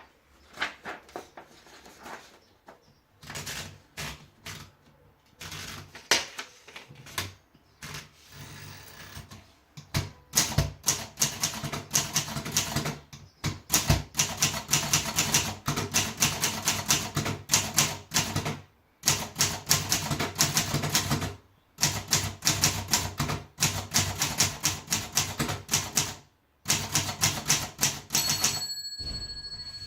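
Everest model 90 manual typewriter being typed on. Keystrokes start scattered, then turn into fast runs of sharp clacks broken by short pauses, with a single ringing tone near the end.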